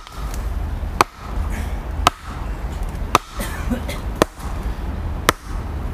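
Sledgehammer blows on the top of a wooden stake, driving it into the soil: sharp, evenly paced strikes about one a second, six in all.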